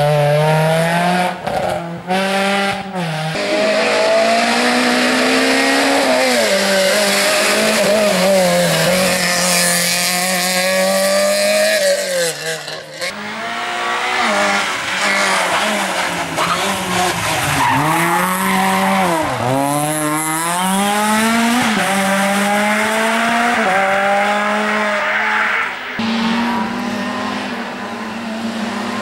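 Rally car engine driven hard on a stage, its pitch repeatedly climbing under acceleration and dropping back at gear changes and lifts, with one brief lift to a lower level about halfway through.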